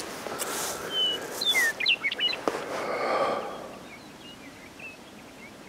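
Small birds chirping: a cluster of short, quick chirps in the first half, then a few fainter ones, over a soft rustling noise that dies away about halfway through.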